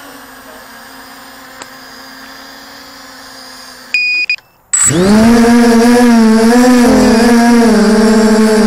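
A faint hum of a distant quadcopter, then about four seconds in a short electronic beep from the FPV quadcopter. After a brief silence its brushless motors spin up, loud and steady with a slightly wavering pitch, as it takes off.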